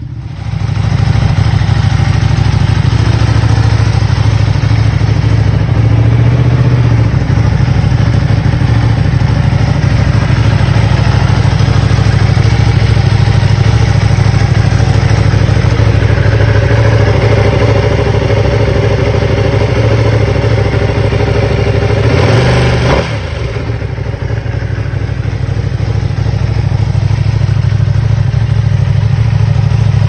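Ducati Panigale V2's 955 cc Superquadro L-twin idling steadily through its exhaust. About three-quarters of the way through the sound briefly changes, and then the engine idles on a little quieter.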